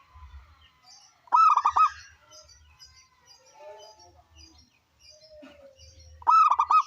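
Local zebra dove (perkutut) cooing: two loud bursts of about four quick, clipped coos, one about a second in and one near the end, with faint high chirps between them.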